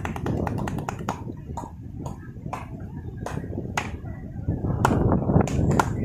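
Head massage: a masseur's hands tapping and slapping on a man's oiled head and neck, giving sharp, uneven clicks a few times a second over a steady low background rush.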